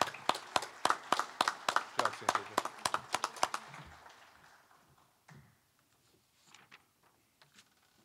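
Clapping from a small group, the individual claps distinct, dying away about four seconds in; a few faint knocks follow.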